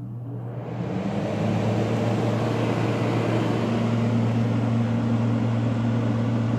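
LG 12,000 BTU air conditioner switching on in cool mode: its compressor hum starts suddenly and the fan's rush of air builds over about a second, then both run steadily.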